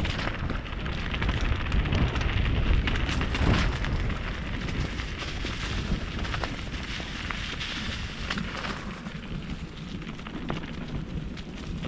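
Mountain bike running fast down a dirt trail: wind buffeting the onboard camera's microphone as a heavy rumble, over a dense patter of tyre noise and rattling from the bike.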